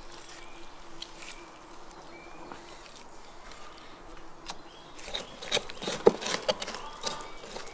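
Knife cutting raw ostrich meat off the bone on a wooden table: a faint steady hum for the first few seconds, then a run of sharp clicks and knocks from about five seconds in, the loudest about six seconds in.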